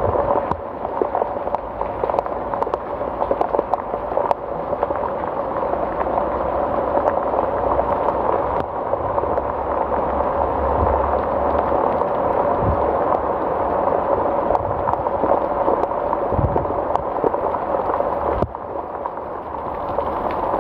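Heavy tropical rain falling steadily: a dense, even hiss with countless small drop ticks.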